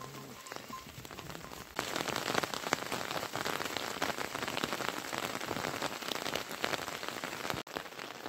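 Rain pattering steadily. About two seconds in it turns louder and denser, with many close drop ticks on a plastic tarpaulin. Near the end it drops back suddenly to a fainter patter.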